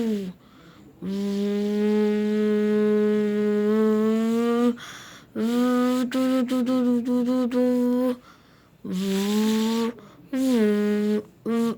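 A person's voice imitating a motorcycle engine: a long held buzzing hum that creeps up in pitch, then a choppy stretch broken into quick stutters, then shorter revs that rise and drop in pitch.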